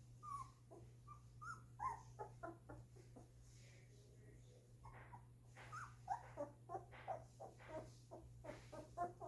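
Two-week-old golden retriever puppies whimpering: many short, high calls, one run near the start and a busier run in the second half, over a steady low hum.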